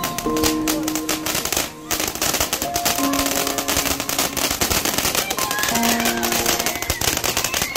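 Ground fountain fireworks spraying sparks, crackling in a dense rapid patter that eases briefly about two seconds in. Background music with short held notes plays alongside.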